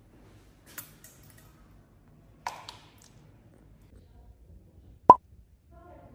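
A few short clicks, then one sharp, loud pop about five seconds in.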